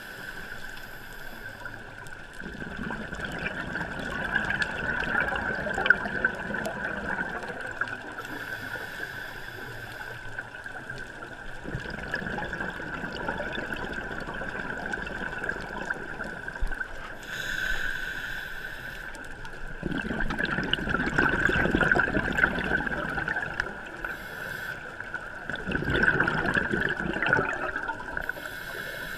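Scuba diver breathing through a regulator underwater: a short hiss on each inhalation, then a few seconds of rumbling, gurgling exhaust bubbles, four breaths in all, over a steady high-pitched hum.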